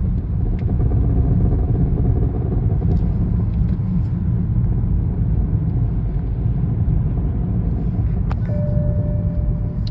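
BMW 328i engine running with a steady low rumble, heard from inside the car. Near the end a seatbelt warning chime starts sounding.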